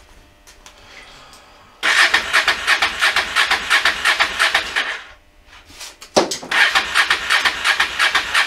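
Motorcycle starter motor cranking the engine in two bursts of about three seconds each, with a short pause between; the engine does not catch. The bike has stood unused a long time and fails to start, so ether is needed.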